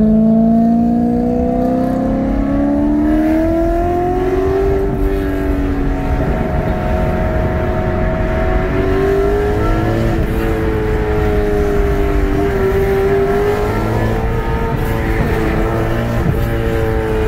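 BMW E93 M3's V8 through a Gintani aftermarket exhaust, accelerating ahead of a following car: the engine note climbs for the first few seconds, then drops and climbs again as it goes through the gears. Steady tyre and road noise runs underneath.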